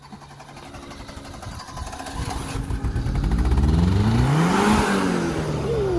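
Suzuki Samurai's four-cylinder engine running and revving, its pitch climbing steadily to a peak about four and a half seconds in, then dropping back.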